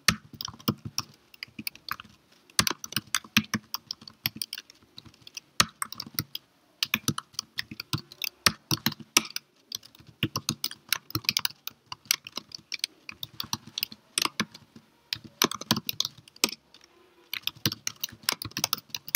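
Typing on a computer keyboard: irregular runs of quick keystroke clicks broken by short pauses.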